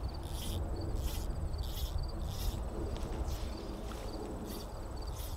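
Insects in the pond-side weeds: a raspy high buzz that repeats about every two-thirds of a second over a steady thin high trill, with a low rumble underneath.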